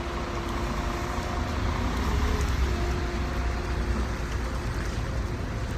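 Steady road traffic noise: a low rumble with the faint hum of a vehicle engine running.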